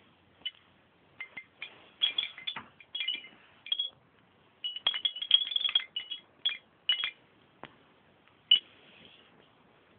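Light metallic jingling and clinking in short, irregular bursts, thickest about two seconds in and again from about five to seven seconds in.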